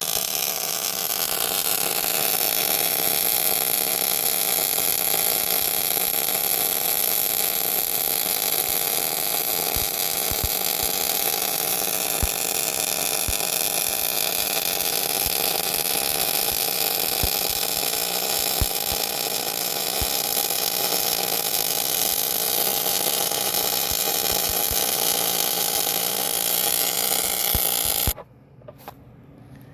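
Plasma cutter gouging out a crack in a grader wheel to prepare it for welding: a steady hiss with a few faint clicks, cutting off suddenly near the end.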